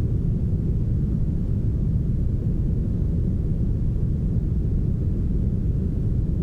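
Heavily smoothed brown noise: a steady, low, even hush with almost no hiss on top and no change in level.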